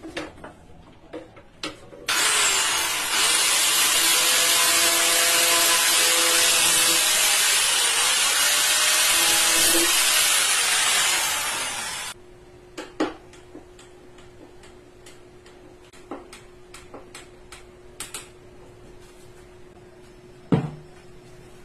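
A power tool working wood runs loudly for about ten seconds, starting about two seconds in and then stopping. Afterwards there are light taps and clicks over a faint steady hum, with one sharper knock near the end.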